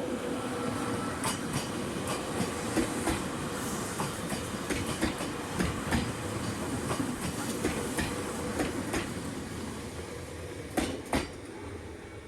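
Chichibu Railway train passing over the level crossing, its wheels clacking over the rail joints in irregular runs of sharp clicks over a steady rumble. It fades near the end as the train moves away.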